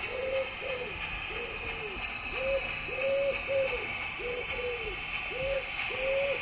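Wood pigeon cooing: repeated five-note phrases, a short coo, a longer held coo, then three more, about every three seconds.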